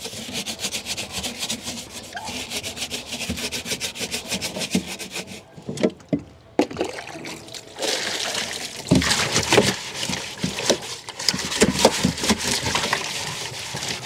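A scrub pad rubbing hard on the wet plastic inner wall of a fridge box in rapid back-and-forth strokes, scouring off algae. The scrubbing stops for about a second midway, then starts again.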